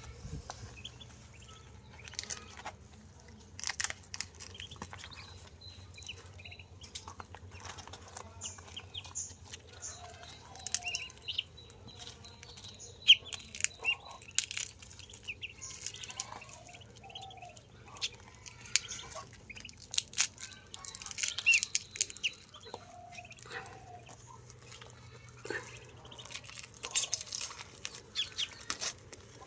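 Newly hatched Muscovy ducklings peeping in many short, high chirps, mixed with clucking poultry calls and scattered clicks.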